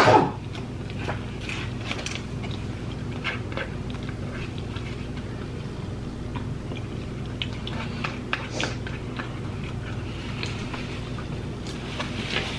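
Close-miked eating sounds: biting and chewing fried chicken, with scattered small clicks and smacks from plastic forks and food containers, over a steady low hum. A cough sounds right at the start.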